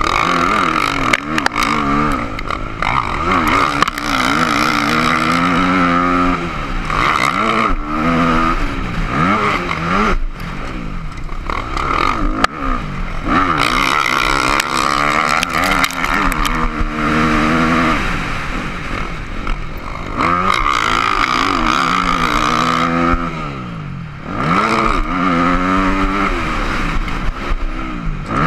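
Yamaha YZ250F's four-stroke single-cylinder engine revving up and dropping back again and again under racing throttle, heard close up from a camera on the bike, with wind noise and rattles over the rough track.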